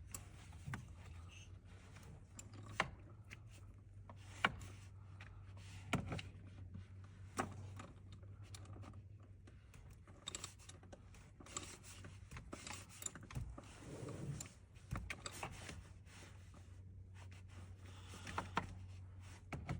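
Hand tools clinking and clicking now and then while a socket with a swivel knuckle is worked in a tight spot, several sharp metallic knocks among them. A steady low hum runs underneath.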